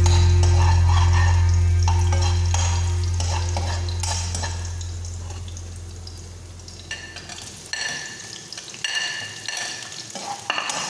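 Metal spatula stirring and scraping in a nonstick frying pan of hot oil on a gas burner, the oil sizzling, with scattered clicks and scrapes. A low hum fades away over the first half. In the last few seconds sliced onion and tomato are scraped off a plate into the pan with more clatter.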